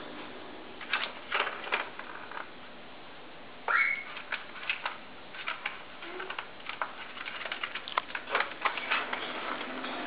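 Ferret batting a ball around inside a plastic circuit-track cat toy: irregular clicks, taps and rattles of the ball and paws against the plastic track, with one louder short sound about four seconds in.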